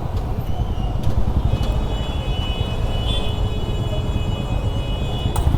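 Steady low rumble of a motorcycle and the traffic around it. A high, steady multi-toned whine or tone rises over it from about a second and a half in and stops near the end.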